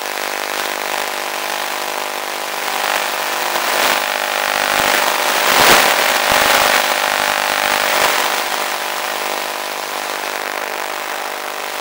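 Electric motor and propeller of an FPV model airplane running at a steady pitch under power, with a rushing noise that swells in the middle and then eases off.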